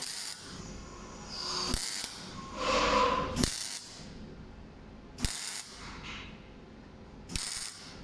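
MIG welding arc crackling in short bursts as tack welds are laid on steel square tubing: about five separate welds of a second or less, the longest and loudest a little before the middle, several ending in a sharp click.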